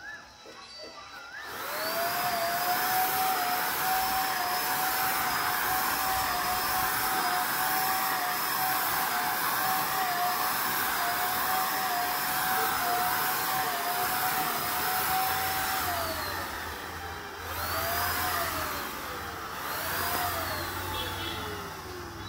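Handheld electric paint spray gun running with a steady motor whine and the hiss of spraying, starting about a second and a half in. Near the end it is switched off and winds down in pitch, then is run twice more in short bursts that each fall away.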